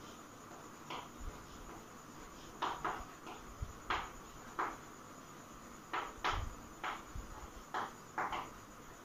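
Chalk writing on a chalkboard: a dozen or so short, irregular scratches and taps as the letters are formed.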